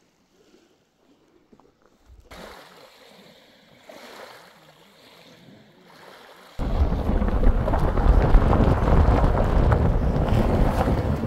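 Wind buffeting the microphone outdoors: a faint windy hiss at first, then from about two-thirds of the way in, loud, gusty low rumbling.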